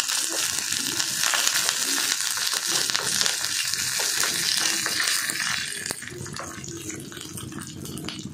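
A tempering of curry leaves, mustard seeds and dried red chilli sizzling and crackling in hot oil in a small pan. The sizzle eases and drops quieter about six seconds in.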